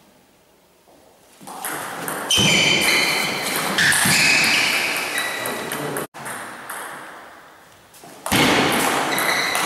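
Table tennis doubles rally: the celluloid ball clicking off bats and table with the players' movement, starting after a quiet first second or so.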